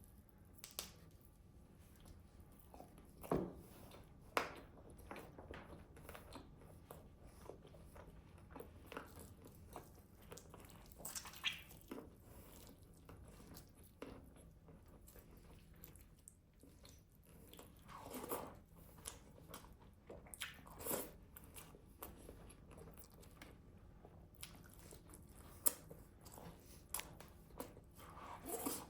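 Close-miked eating of grilled chicken: quiet, irregular bites and chewing, with sharp crunches scattered throughout.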